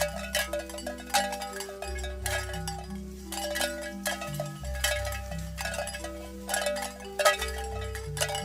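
Background instrumental music: bright chime-like bell tones struck over a steady bass and slowly changing held notes.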